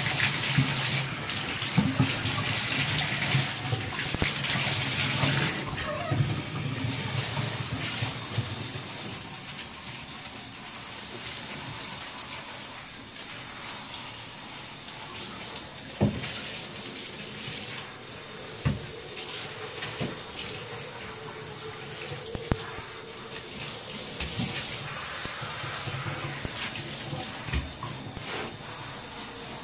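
Water from a handheld shower head spraying into a bathtub and over a wet puppy, a steady hiss that is loudest in the first several seconds. A few sharp knocks come in the middle.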